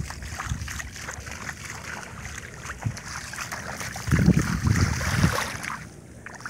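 Splashing and sloshing through shallow floodwater and mud, with a few louder low thumps about four seconds in.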